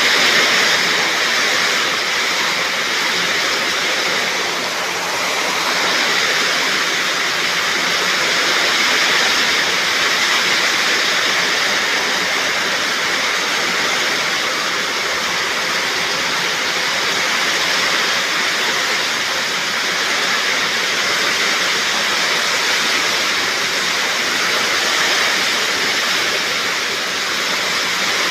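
Heavy rain pouring down in a steady, unbroken rush.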